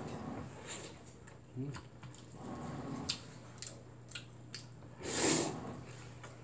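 A man eating cold mixed noodles: light clicks of chopsticks against the bowl as the noodles are lifted, then one loud slurp of noodles about five seconds in. A steady low washing-machine hum runs underneath.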